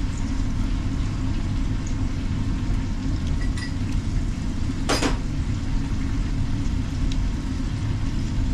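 A steady low rumble, with a single sharp clink about five seconds in.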